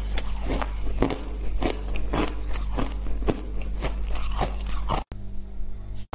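Hard shaved ice being crunched and chewed in the mouth: a run of crisp crunches, about three a second, that stops abruptly about five seconds in, followed by a quieter stretch.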